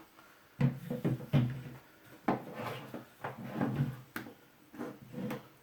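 Pistols being handled and set down on a tabletop: an irregular string of light clicks and knocks.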